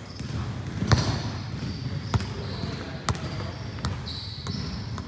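Basketball bouncing on a hard gym floor, about five irregular bounces, the loudest about a second in, echoing in the large hall.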